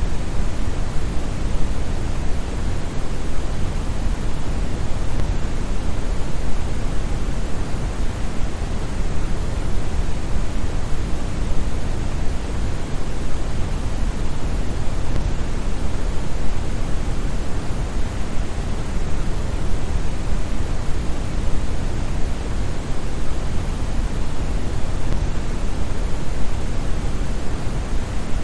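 Brown noise: a steady, deep, even rushing hiss, strongest in the bass and dull in the treble.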